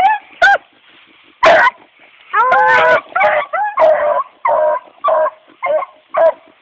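Hound pups giving a run of about a dozen short, high-pitched yips and bawls, one of them longer and drawn out about two and a half seconds in.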